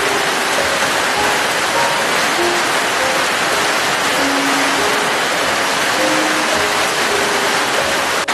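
Steady rain hiss, with soft, slow music notes scattered sparsely over it.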